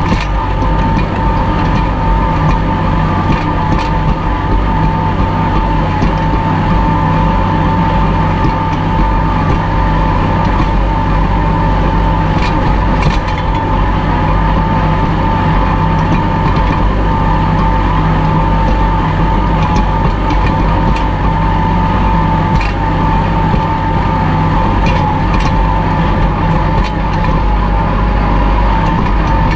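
Kubota L2501 tractor's three-cylinder diesel engine running steadily under load while pulling a disc harrow through the ground, with a steady high whine over the engine note and occasional faint ticks.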